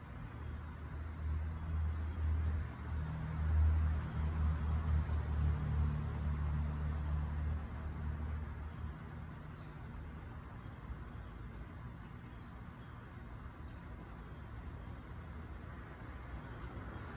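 A passing motor vehicle's low engine rumble, swelling to its loudest about four seconds in and fading away by about nine seconds.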